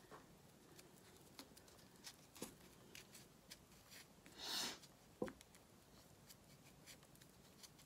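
Faint rustling and small ticks of hands wrapping green floral tape around a spray rose bud and gardenia leaves, with one louder swish a little past halfway and a sharp click just after.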